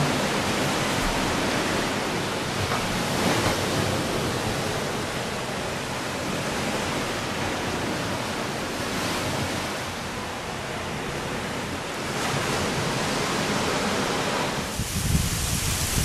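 Steady rush of ocean surf breaking on the shore. Near the end, wind starts buffeting the microphone in gusty low rumbles.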